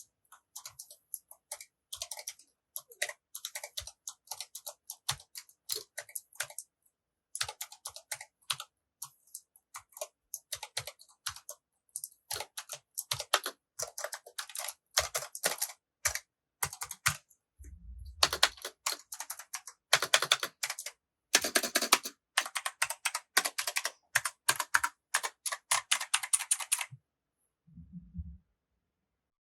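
Typing on a mechanical keyboard fitted with PBT keycaps: runs of key clicks broken by short pauses, coming thicker in the second half. A low thump sounds twice, about two-thirds of the way through and near the end.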